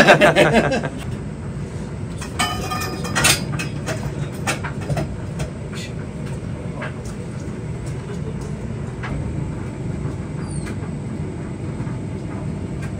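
Workshop clatter of metal tools and parts being handled: scattered light clicks and knocks, with one ringing metallic clink about two and a half seconds in, over a steady low hum.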